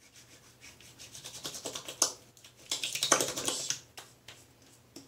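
Hands rubbing post-shave balm between the palms in quick back-and-forth strokes that grow louder, then spreading it over the face, with the loudest rasping a little after the middle.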